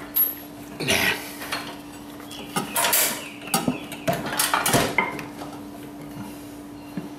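Metal clanking and knocking as a small Kawasaki four-stroke engine is shifted about on a mower's steel engine deck while its crankshaft is lined up with the drive pulley: a handful of irregular knocks, the strongest about a second in and between three and five seconds in, over a faint steady hum.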